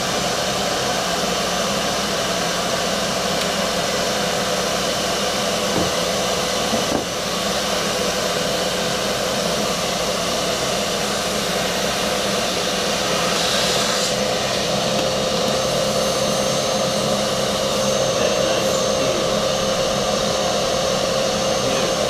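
Household vacuum cleaner running steadily with a constant whine, its hose sealed to the surfski's hull to suck a new rudder line through. A few faint knocks from handling the hose and tape.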